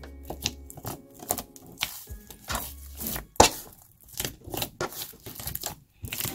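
Freshly made foamy glue-and-detergent slime squelching and crackling as hands knead and pull it, in quick irregular sticky snaps.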